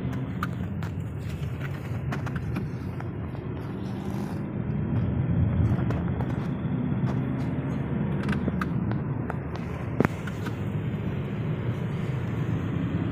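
Car driving at speed on a highway, heard from inside the cabin: a steady engine and road rumble, with one sharp click about ten seconds in.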